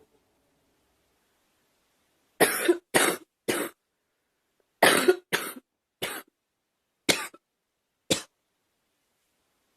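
A girl coughing: a run of three coughs about two and a half seconds in, another run of three a second later, then two single coughs, the last one short.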